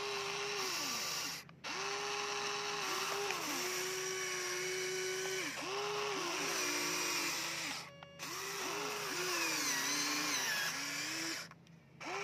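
Electric motors of a Huina remote-control excavator whining in a string of short runs as the arm and bucket are worked. Each whine holds a steady pitch and sags downward as it stops, over a low steady hum. The sound cuts out briefly three times.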